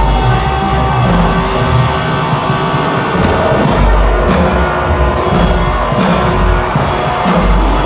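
Loud live avant-garde electronic noise music: a dense wall of sustained tones and noise over heavy, irregular low bass pulses.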